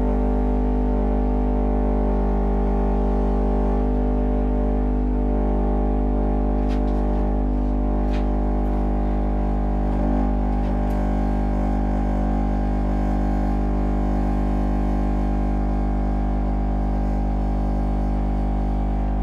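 Alphard Machete M10 10-inch car subwoofer playing a steady 50 Hz test tone, a loud unbroken low drone with many overtones. It is being driven at about twice its rated 350 W in an overpower endurance crash test.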